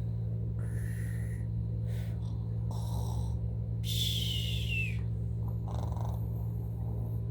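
A toddler pretend-snoring: about five short breathy snorts and snore sounds spaced roughly a second apart, one near the middle ending in a falling squeak.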